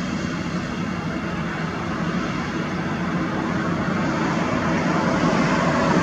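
Twin-engine jet airliner's engines at takeoff thrust during the takeoff roll and rotation: a steady rumble with a faint whine, growing louder.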